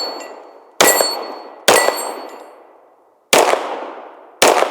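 Four pistol shots from a SIG Sauer P320 Legion, unevenly spaced over about four seconds. Each shot comes with the ringing clang of a steel target being hit, which fades over about a second.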